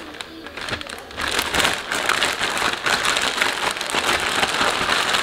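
Plastic zipper bag crinkling as razor clams are shaken inside it with breading. It starts about a second in as a dense, even rustling patter.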